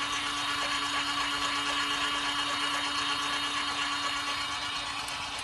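Mini eyelash-cleaning washing machine running: its small electric motor hums steadily on one pitch while the water churns in the drum.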